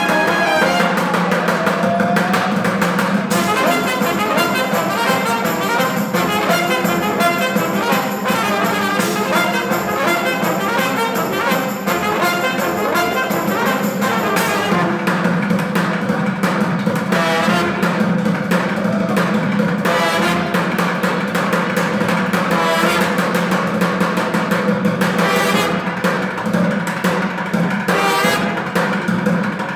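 Busking brass band playing an upbeat tune: trumpet, trombone and saxophone over a drummer beating plastic buckets.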